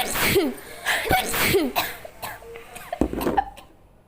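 A woman sneezing three times in quick succession. The sneezes are set off by chili powder irritating her nose.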